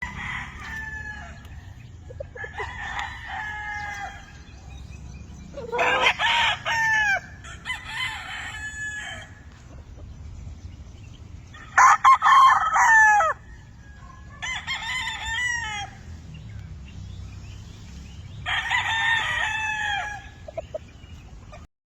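Several gamefowl roosters crowing in turn, about seven crows in all at different pitches, each lasting a second or two, the loudest about halfway through. Softer clucking lies between some of the crows.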